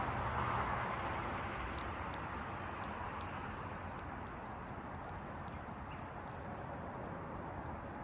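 American goldfinches pecking seed off a concrete surface close by: small, sharp, irregular clicks of beaks on seed and stone. Under them runs a steady rushing background noise that eases off slightly over the first few seconds.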